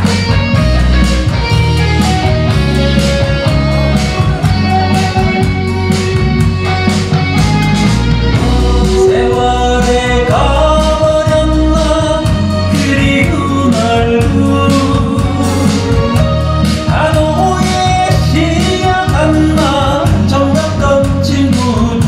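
Live band music for a Korean pop (gayo) song, with drums keeping a steady beat and keyboards, and a male singer singing into a microphone over it.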